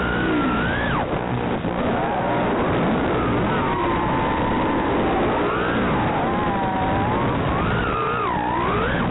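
Brushless motors of a 3-inch toothpick FPV quad (Mamba Toka 1404, 4000 kV) whining over a steady hiss. Their pitch glides up and down with the throttle: it drops about a second in, climbs again and swoops low once more near the end.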